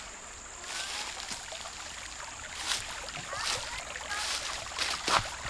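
Footsteps through grass and leaf litter, one every second or so and louder toward the end, over a flowing creek and a steady high insect trill.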